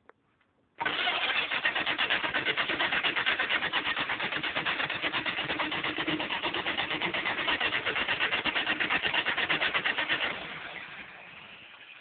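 A 1975 Dodge 318 small-block V8 running with a rapid, even pulse. It starts abruptly about a second in and fades away over the last two seconds. The owner suspects a flat cam lobe or a bad lifter.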